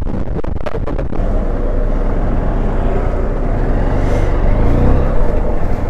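Motorcycle engine running on the move, picked up by a helmet-mounted camera, with a steady low rumble and road noise that grow slightly louder towards the end. A few sharp clicks come about half a second in.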